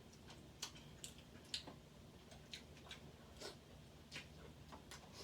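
Faint, scattered clicks and small cracks, about eight in five seconds, of crab-leg shells being cracked and picked apart while eating.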